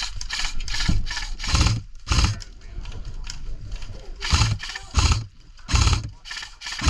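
Footsteps crunching on dry ground, one every half second to second, each with a dull thud and a rustle of gear.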